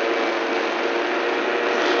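An engine running steadily: an even, droning hum with no change in speed.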